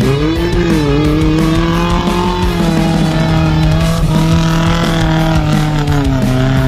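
Car engine revving unevenly, its pitch dipping and rising several times, as the two-wheel-drive vehicle backs up over rough off-road ground. Background rap music plays along with it.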